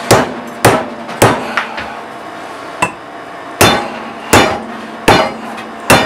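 Hammer blows driving a wooden wedge into the end of an axe handle to tighten the axe head: sharp strikes with a short ring, roughly one every half to three-quarters of a second, with a pause in the middle broken by two lighter taps, over a faint steady hum.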